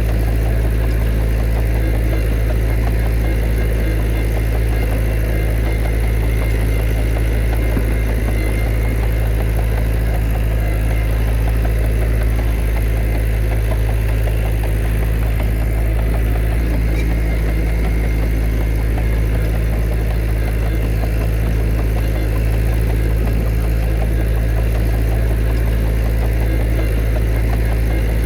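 Heavy diesel engine of earthmoving machinery running steadily with a continuous low drone.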